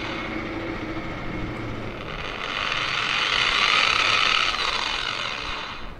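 Handheld electric orbital polisher-sander running with its pad against a paper plate. It grows louder about halfway through, then winds down and stops just before the end.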